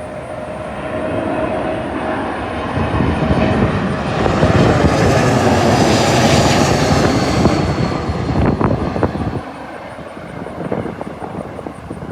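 Delta Airlines jet airliner passing low overhead on landing approach: the engine noise swells to a peak with a high whine about halfway through, then falls away. Wind buffets the microphone near the end.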